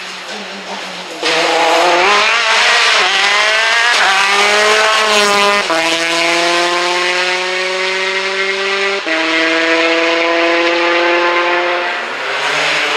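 Peugeot 208 rally car's engine at full throttle, pitch climbing steadily through the gears with quick upshifts about halfway through and again about two-thirds of the way in.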